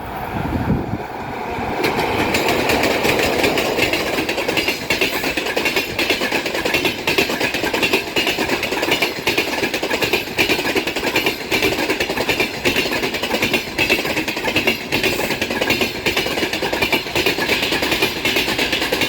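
Passenger train behind a ChS7 electric locomotive passing at speed, its wheels clattering loudly over the rail joints in a dense run of rapid knocks that builds up over the first two seconds and then holds steady.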